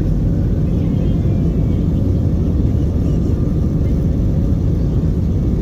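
Airbus A320 heard from inside the passenger cabin: a steady, loud low rumble of engines and airflow.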